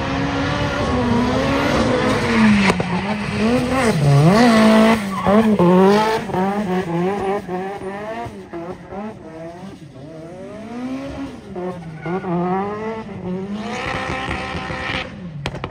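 Drift car's engine revving hard, its pitch swooping up and down with throttle and rev-limiter stabs, over the squeal of tyres sliding sideways. Loudest a few seconds in, it fades somewhat around the middle as the car moves away, then swells again near the end.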